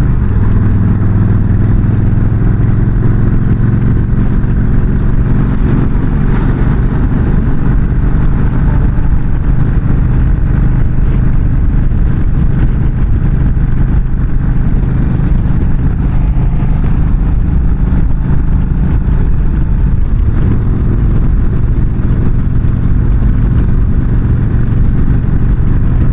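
Yamaha V-Star 1300's V-twin engine running steadily at highway cruising speed, under a constant rush of wind and road noise.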